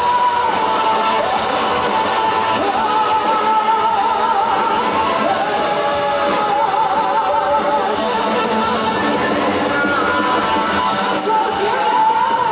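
A live rock band playing electric guitar, bass, drums and keyboard under a sung melody, with held notes that waver.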